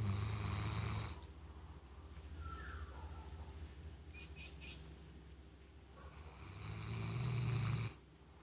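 A 13-year-old Golden Retriever snoring in its sleep: two long, low, fluttering snores, the first ending about a second in, the second building up near the end and stopping sharply. A few short high chirps come in the quieter stretch between them.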